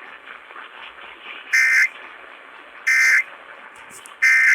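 Emergency Alert System end-of-message data bursts: three short, buzzy digital tone bursts of the SAME code, about a second and a half apart, closing the alert over broadcast radio, with faint radio hiss between them.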